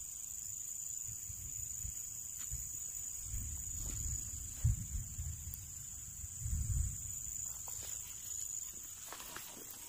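Insects chirring in a steady high-pitched drone in the field, over a low rumble on the microphone, with a couple of dull thumps about halfway through.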